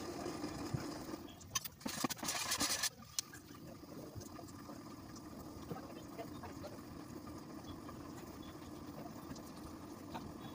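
Milk tea heating in a steel pot on the stove, with a steady low hum and faint simmering as it starts to froth. Two louder bursts of hissing noise come in the first three seconds.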